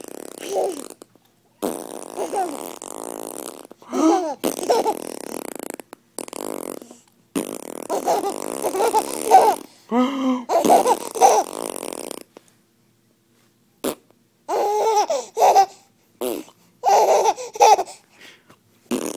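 An adult's imitation fart sounds, buzzy and repeated, answered by a baby's laughter and by adult laughter, in bursts with short pauses between.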